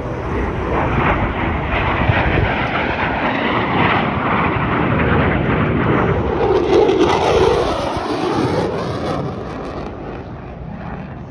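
A jet aircraft flying a display pass, with a broad engine noise that swells about six seconds in and fades toward the end.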